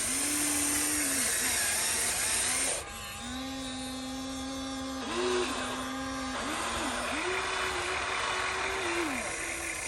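Small electric motors of radio-controlled model construction machines whining, the pitch stepping up and down as they start, stop and change speed, over a steady hiss. The hiss drops sharply about three seconds in.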